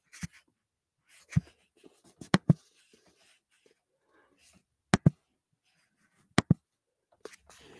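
Computer mouse clicking: a handful of sharp clicks with quiet between them, several coming in quick pairs like double-clicks.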